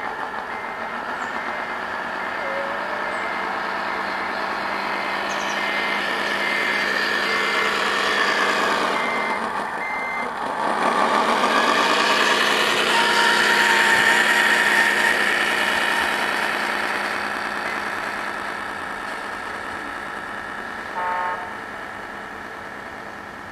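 Sound module of an RC model truck playing a diesel engine that swells louder and then fades, with a reversing beeper sounding about one and a half beeps a second for the first ten seconds. A short horn toot comes near the end.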